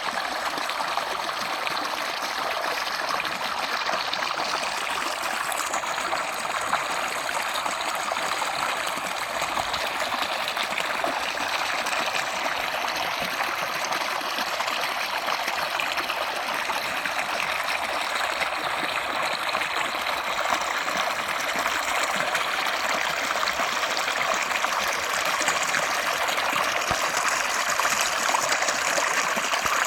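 Running water of a stream, a steady flowing and trickling rush.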